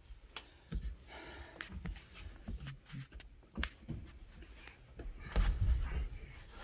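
Cord being pulled out through a rubber windshield seal to flip its lip over the body flange as the glass is set: scattered rubbing and light knocks of hands and glass against the seal and cab, with a heavier low rumble of handling about five seconds in.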